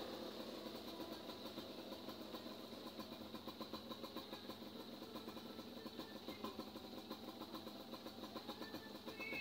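Single-cylinder four-stroke motorcycle engine of a Suzuki Thunder bored out to 152 cc, running steadily with an even, rapid pulsing beat.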